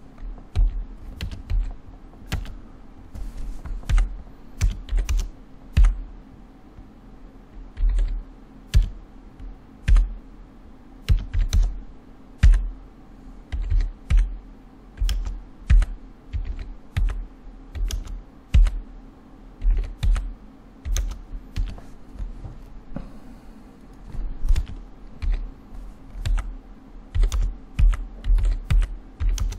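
Computer keyboard typing in irregular runs of keystrokes, with a faint steady hum underneath.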